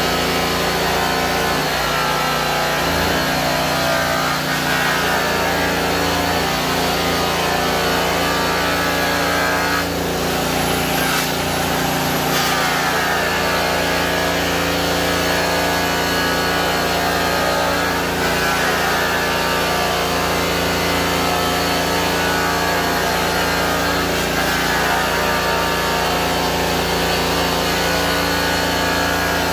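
Handheld rotary polisher running on a stainless steel tanker tank, its whine dipping and recovering several times as it is pressed into the metal and eased off, over a steady lower drone.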